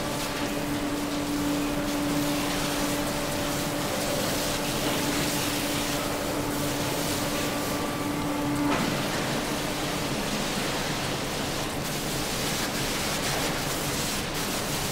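Slaughterhouse processing machinery running: a loud, steady hiss with a steady machine hum over it. The hum cuts off suddenly about nine seconds in, while the hiss carries on.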